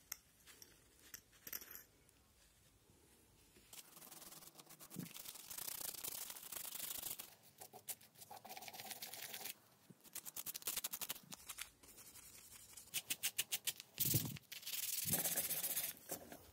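Brush scrubbing rust off a small metal disc from a speedometer gauge in spurts of rapid back-and-forth strokes, starting about four seconds in and quickest and loudest near the end. A few light clicks of small parts being handled come before it.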